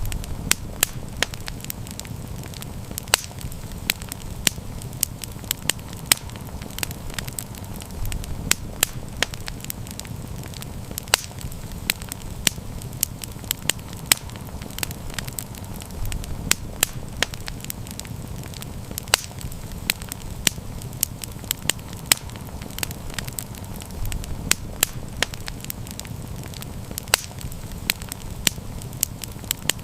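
Campfire crackling: many irregular sharp pops and snaps over the steady low rush of the burning fire.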